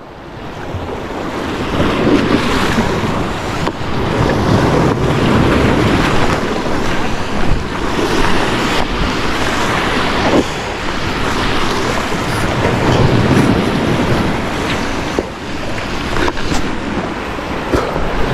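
Sea surf washing in slow swells that rise and fall every few seconds, with wind buffeting the microphone.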